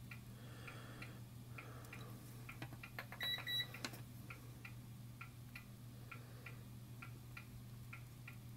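Faint, fairly regular ticking, about two to three ticks a second, over a steady low hum, with a short electronic beep about three seconds in.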